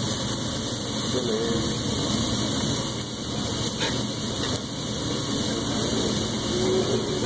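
Steaks and shrimp sizzling steadily on a hot teppanyaki flat-top grill, a continuous hiss over the hum of the restaurant.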